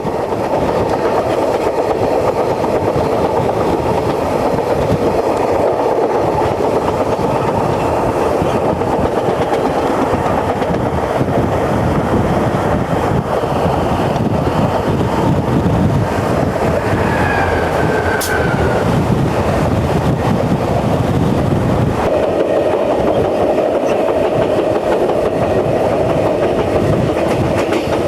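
Amtrak Desert Wind passenger train running, heard from an open vestibule: the steady rumble and clatter of the wheels on the rails, with the character of the rumble changing about 22 seconds in. A faint brief squeal rises out of it around 17 seconds in.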